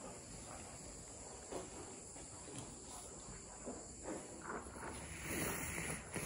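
Steady high-pitched insect chirring, likely crickets, with faint scattered footsteps and rustles. About five seconds in, a louder hiss comes in.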